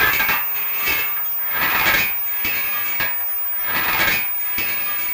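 Steam locomotive 'release clinker' sound effect from the PIKO TT Class 55 model's sound decoder: metallic rattling and scraping as clinker is knocked out of the firebox, swelling in strokes about once a second.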